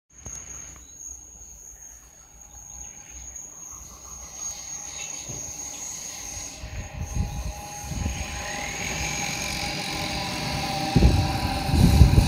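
ICE 3 high-speed train approaching and running through the station. Its sound grows steadily from a faint hum to a loud rumble of wheels on rails in the last second or so. A steady high tone sounds over the first part, and a whine rising in pitch comes in about two thirds of the way through.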